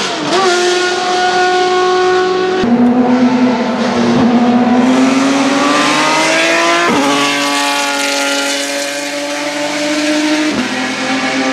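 Open-wheel racing car engine running hard, its note climbing steadily and stepping abruptly at gear changes about every four seconds.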